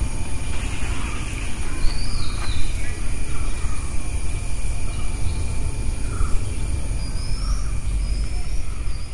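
Outdoor ambience: a steady low rumble with indistinct murmuring voices and a few short, high chirping whistles about two seconds in and again near the end.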